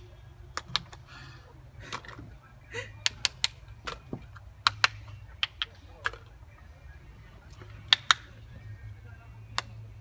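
More than a dozen sharp, irregular clicks and knocks over a low steady hum.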